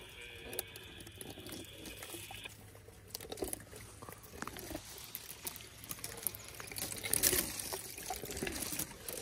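African elephant chewing thorn branches at close range: wet, saliva-filled crunching with irregular crackles of twigs breaking between its molars, loudest about seven seconds in.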